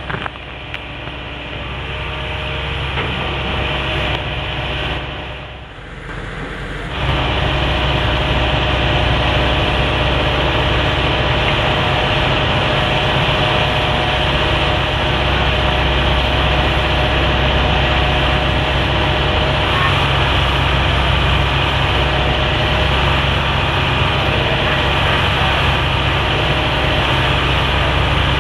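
Hitachi ZX225USR excavator's diesel engine running steadily. It dips briefly, then becomes abruptly louder about seven seconds in and holds that level.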